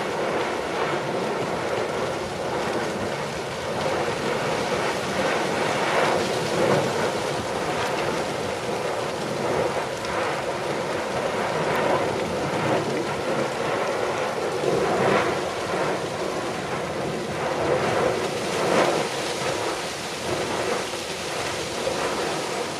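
Lava fountaining from a volcanic vent: a continuous rushing noise full of crackling spatter from falling lava clots, with several brief louder surges.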